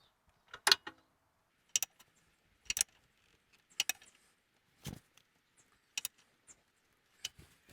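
Ratchet or torque wrench tightening the strut's bottom bolt: sharp metallic clicks about once a second, some in quick pairs, as the handle is worked back and forth.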